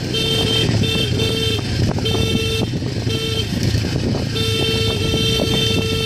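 Motorcycle horn sounding in about five short toots, then held in one long blast from about four and a half seconds in, over the motorcycle's engine running.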